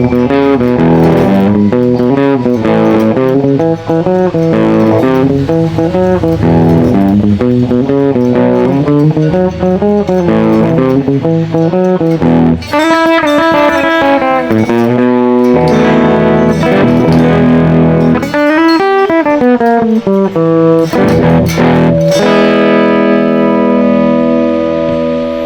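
Difergio MSV guitar played through a microphone: a melodic picked passage with quick runs of single notes, ending on a chord left to ring for the last few seconds.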